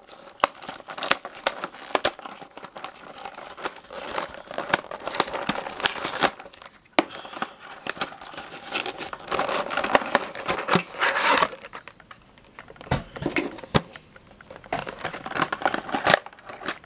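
Cardboard packaging of a die-cast car multi-pack being torn open and its clear plastic blister and wrapping crinkling in the hands. The crackling is dense for the first eleven seconds or so, then turns sparser with a few sharp knocks.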